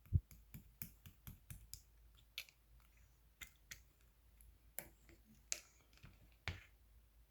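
Clear slime being squeezed and poked by hand, giving irregular sharp clicks and pops, the loudest a deeper pop just after the start.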